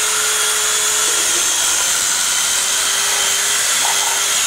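DeWalt DW390 alligator saw with twin reciprocating blades, its electric motor running steadily at full speed with a steady whine while it cuts scrap wooden boards.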